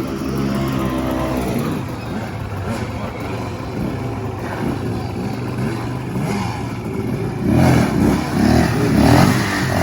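An off-road motorbike-type engine running and revving, its pitch shifting in the first second or so. The revs surge louder in pulses near the end.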